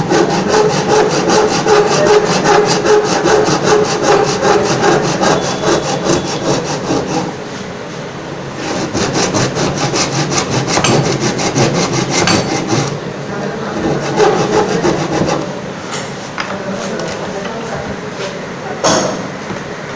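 Tenon saw cutting through wood by hand in quick, even back-and-forth strokes. It stops briefly about a third of the way in, then starts again. The strokes grow lighter in the last few seconds, and there is a single sharp knock near the end.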